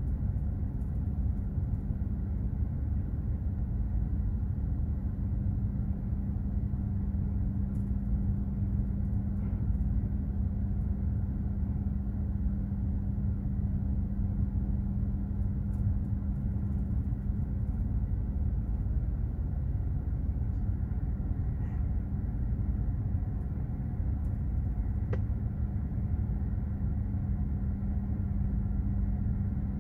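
Container ship under way: a steady low rumble of its machinery with a constant hum.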